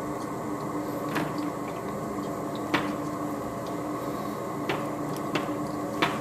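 Hand tap in a T-handle tap wrench being turned into a drilled hole in a PVC pool return pipe to cut threads, giving a handful of sharp, irregular clicks over a steady hum.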